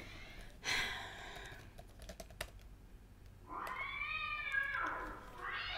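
Light typing on a Microsoft Surface laptop keyboard. About three and a half seconds in, a street cat yowls outside in one long call that rises and falls, and another call starts near the end.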